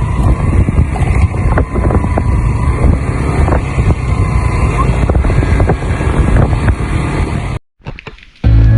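Wind buffeting the microphone over a running engine, with scattered knocks; it cuts off suddenly about seven and a half seconds in.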